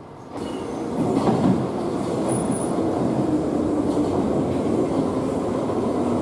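London Underground 1973 stock Piccadilly line train approaching the platform through the tube tunnel: a steady rumble of wheels on rail that grows louder about a second in, with a faint steady tone running through it.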